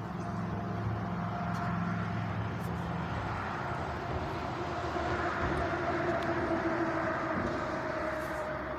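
A steady engine drone, like a passing vehicle, its pitch shifting about three seconds in.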